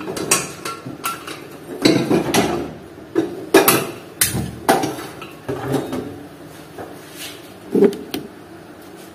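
Aluminium pressure cooker and its lid knocking and clattering against the gas stove and counter as they are handled: a string of irregular metal knocks, the sharpest around three and a half to five seconds in.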